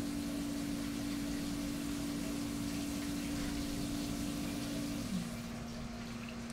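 Tormach 1100MX CNC mill roll-tapping 10-32 threads under flood coolant: coolant spraying and splashing over the part, with a steady machine whine that steps down to a lower pitch about five seconds in.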